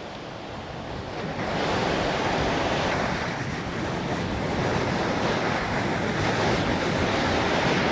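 Ocean surf with wind gusting across the microphone: a steady rushing noise that grows louder about a second and a half in.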